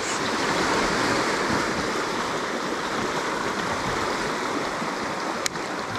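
Rushing white water of a river rapid, a steady even rush, with a single light tap about five and a half seconds in.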